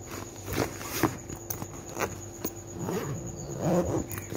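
A school bag and things beside it being handled close to the microphone: a few sharp knocks and clicks in the first two seconds, then rustling of fabric near the end, over a faint steady high whine.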